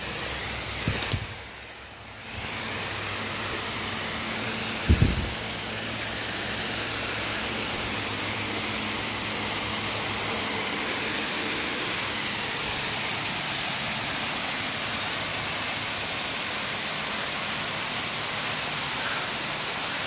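Waterfall: steady rushing water pouring down a rock face, a constant even hiss. Two short low thumps break in, about a second in and about five seconds in, the second the loudest.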